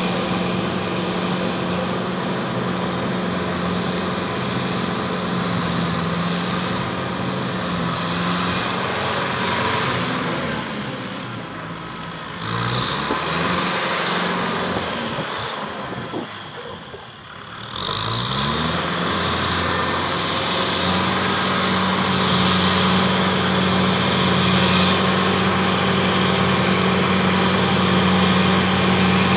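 Kubota tractor's diesel engine running steadily under load, pulling a rotary tiller. The sound fades as the tractor moves away around the middle, with the engine note rising twice. It runs steady and louder again through the last third.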